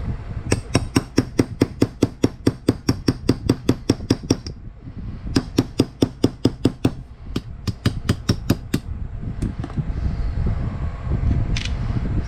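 Rapid, even metallic clicking, about seven clicks a second, in three runs separated by short pauses.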